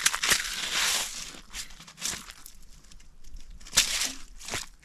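Rustling and crunching handling noise with several sharp clicks and knocks, the heaviest in the first second, as a just-landed smallmouth bass is handled on the ice to be unhooked.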